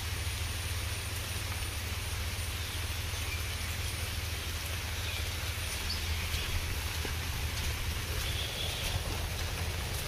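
Steady outdoor ambience: a constant low rumble and hiss with a few faint, short high chirps now and then, and a single sharp click at the very start.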